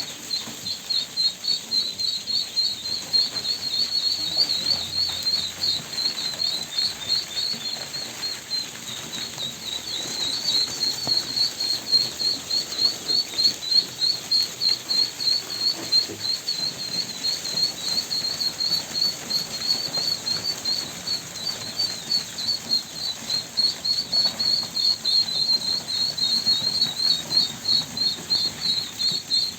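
Ducklings peeping: high-pitched peeps, several a second, without a break.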